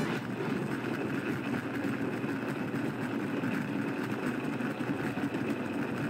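Philips Walita blender motor running steadily, churning a thick load of bar soap and water.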